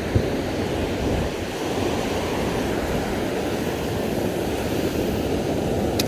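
Ocean surf washing on a beach, a steady low wash, with wind buffeting the phone's microphone. A short thump comes just after the start.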